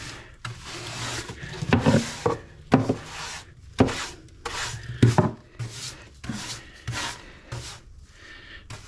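Stiff-bristled hand brush sweeping leftover molding sand across a flat surface in repeated scrubbing strokes, about one a second, with a few sharper knocks among them.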